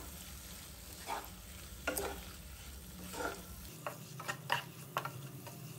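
Wooden spatula stirring and scraping chopped capsicum and onion through thick masala in a non-stick frying pan, over a low sizzle of frying. The scraping strokes come irregularly, more often in the second half.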